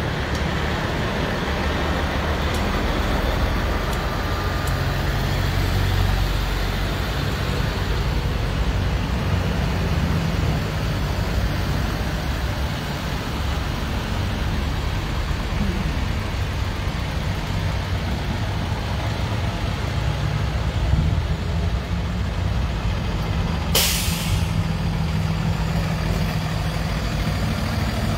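Tow trucks' engines running steadily as the trucks drive past in procession, with one short, sharp hiss of air brakes near the end.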